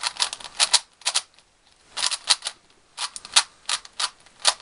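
Plastic Dayan II 3x3 speedcube being turned fast, its layers clacking in quick bursts of turns with short pauses between them. The turns run smoothly without locking up.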